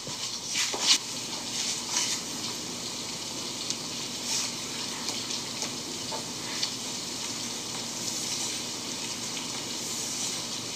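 A steady hiss, with a few soft clicks and rustles scattered through it.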